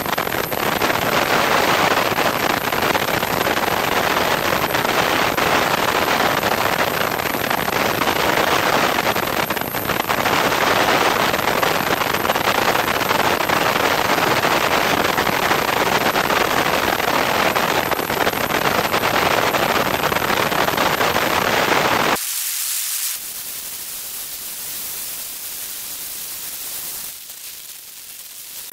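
Rushing airflow noise over a camera mounted under the wing of a Piper Cherokee in flight, a steady loud hiss with no clear engine note. About 22 seconds in it cuts abruptly to a quieter, thinner hiss with the low end gone.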